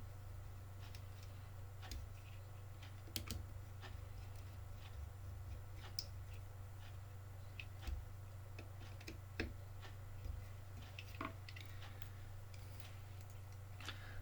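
Scattered light clicks and taps from small parts and wires being handled while an RC car's cooling fan and wiring are fitted, over a steady low electrical hum.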